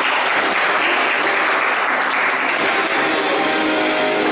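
A small audience clapping steadily, with music faintly underneath.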